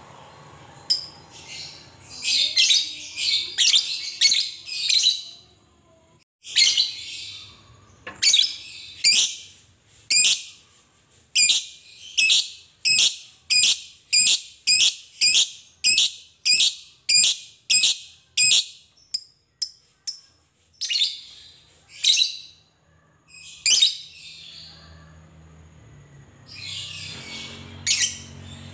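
Fischer's lovebird giving its long 'ngekek' chatter: a long run of shrill, evenly repeated calls, about two a second, with a few scattered calls before and after the run.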